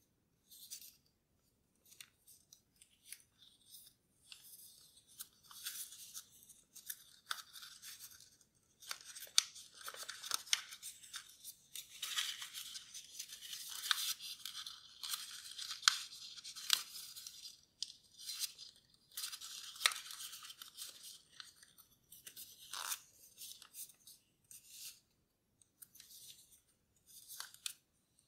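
A sheet of paper rustling and crinkling as fingers fold and crease it into a paper airplane, with irregular crackles and sharp little snaps, busiest in the middle.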